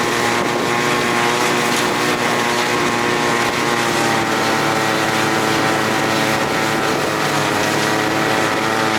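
Buran snowmobile's two-stroke engine running steadily under way, heard from a sled towed behind it, its pitch dipping slightly about four seconds in.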